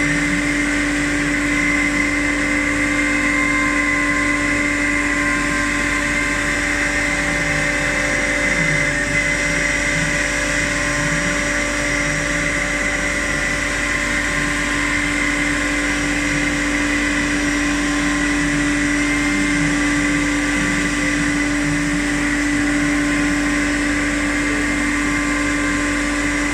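CNC router running steadily, its spindle giving a constant hum with a high whine over it.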